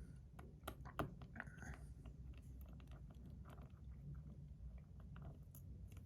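Faint scattered clicks and small scrapes of a metal EDC slider fidget being handled and taken apart, with one sharper click about a second in.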